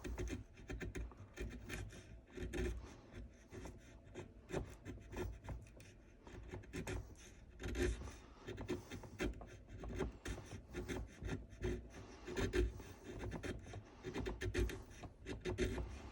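Hand chisel paring and chipping wood from a rifle stock in many short, irregular scraping strokes.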